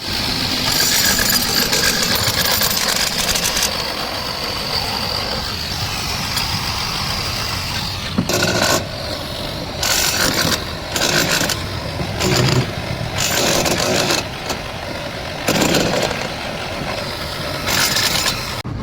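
A machine engine running steadily. From about eight seconds in, short loud noisy bursts come roughly once a second, irregularly.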